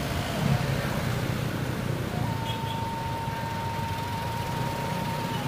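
Motorcycle running on the road, a steady low engine rumble with wind and road noise. A thin steady high tone joins about two seconds in and holds on.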